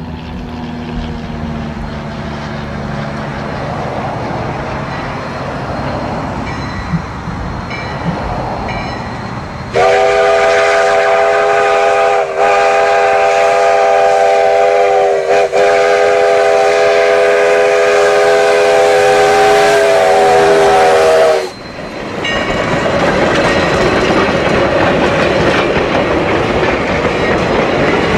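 Sierra Railway No. 3, a 4-6-0 steam locomotive, draws nearer and its rumble slowly grows. About ten seconds in, its steam whistle sounds a loud chord of several tones for about eleven seconds, breaking briefly twice, and then cuts off. The train then rolls past close by with a steady clatter of wheels on the rails.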